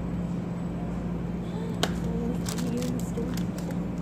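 Big-box store background: a steady low hum with faint distant voices, and a single sharp click about two seconds in.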